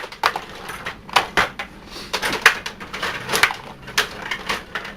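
Stiga table hockey game in play: irregular sharp plastic clicks and clacks of the rods, player figures and puck knocking, several a second.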